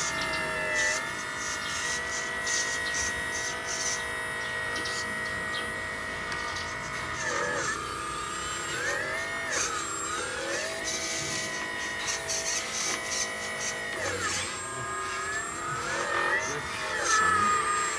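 Electric drive motor and gearbox of a homemade 1/6-scale RC truck whining steadily. The pitch dips and climbs again several times as the truck slows and speeds up, most often in the second half.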